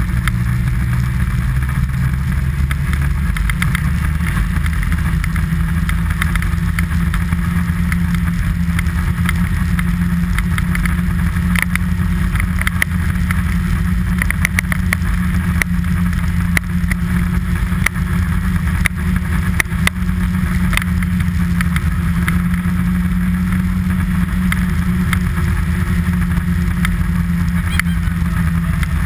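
An engine running steadily at a nearly even pitch, with scattered light clicks and rattles over it.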